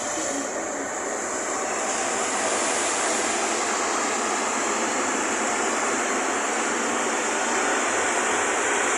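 NS-74 rubber-tyred metro train running through a tunnel, heard from inside the car: a steady roar of tyres and traction motors that grows a little louder over the first few seconds, then holds.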